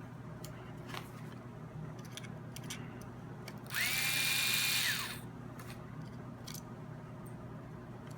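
A small cordless power driver spins up, runs steadily for about a second and winds down, backing out one of the action's cap screws. Light clicks and taps of the screws and parts being handled come before and after.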